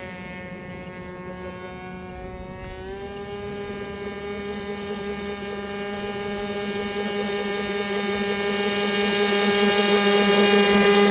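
O.S. .25 two-stroke glow engine of a radio-controlled airboat running at high revs, turning its propeller. It gives a steady drone that steps up slightly in pitch about three seconds in and grows steadily louder as the boat comes closer.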